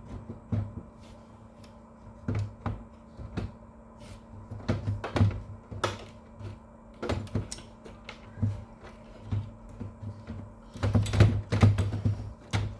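Scattered clicks, taps and knocks of plastic printer parts being handled during reassembly of a Kyocera FS-1130 laser printer's fuser unit, with a denser run of knocks near the end, over a faint steady low hum.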